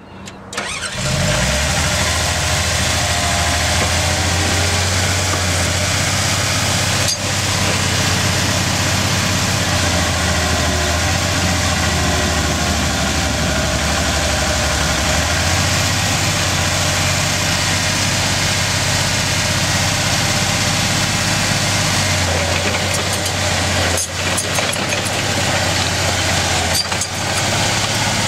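Komatsu D31E-20 crawler dozer's diesel engine running steadily, its note shifting about halfway through and again later while the blade is raised and the machine moves off.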